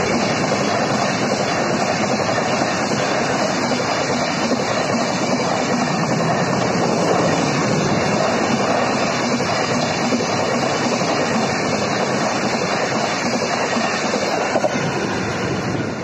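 Rajdhani Express LHB passenger coaches rushing past at full speed, a steady loud roar of wheels on rail. It falls away sharply right at the end as the last coach clears.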